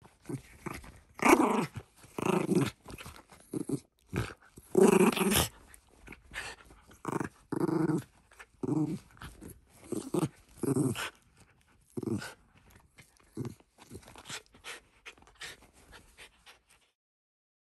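Shiba Inu play-growling at a work glove in irregular bursts, the loudest about a second in and again around five seconds, then softer and shorter ones; it cuts off near the end.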